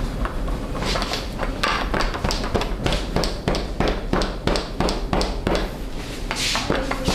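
Rapid, slightly uneven run of hand strikes on a client's body during a percussive barber massage, about three to four slaps and taps a second.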